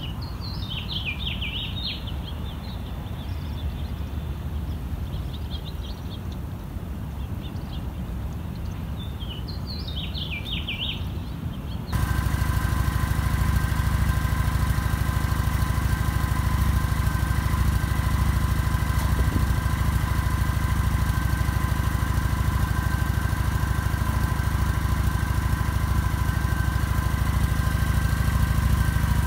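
Kawasaki Vulcan 900's V-twin engine idling steadily, with small birds chirping in short bursts over the first part. About twelve seconds in the sound jumps louder, the idle steady with a thin whine over it.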